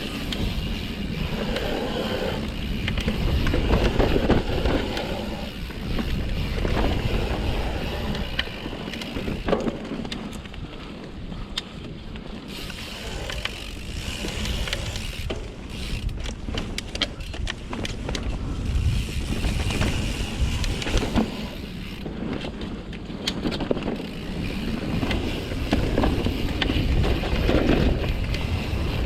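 Mountain bike riding down a dirt singletrack: tyre noise on dirt, wind on the microphone, and the chain and frame rattling with frequent clicks and knocks over bumps and roots.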